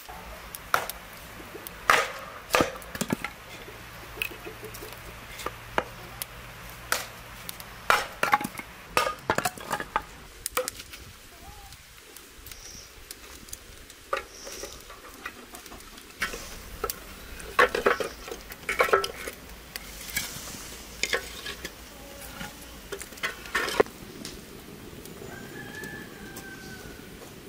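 Firewood being chopped and split pieces handled: sharp wooden knocks and clatter in irregular clusters.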